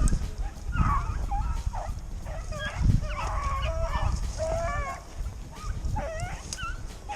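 A pack of rabbit-hunting dogs baying, several voices overlapping in long wavering cries, as hounds do when running a rabbit.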